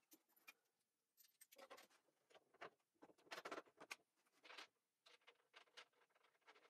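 Faint scraping, rustling and light knocks of wooden parts being handled and fitted together by hand, in short irregular bursts.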